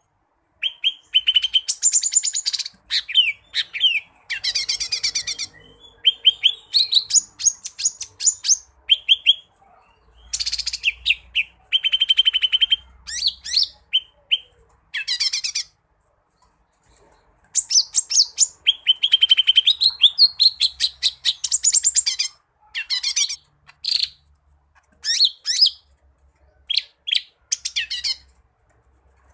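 Green leafbird (cucak ijo) singing in bursts of rapid chirps and trills, its varied phrases including mimicked calls of other birds, with a short pause about halfway through.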